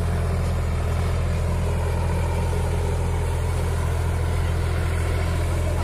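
Farm tractor's diesel engine running steadily with a low, even hum while the tractor is towed through deep mud.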